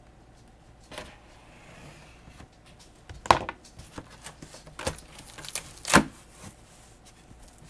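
Cardboard shipping box being opened by hand: a few sharp knocks and snaps of cardboard, the second and fourth the loudest, with rustling and scraping between them.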